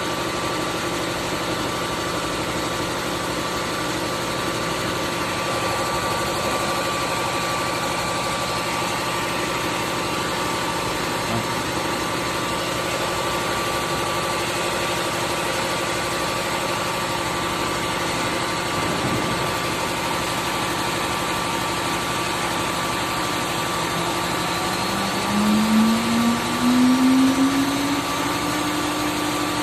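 Wood CNC engraving machine running steadily, its spindle and vacuum table motors giving a constant mechanical hum with a steady whine. About 25 s in, a louder hum rises in pitch over a couple of seconds and then holds steady.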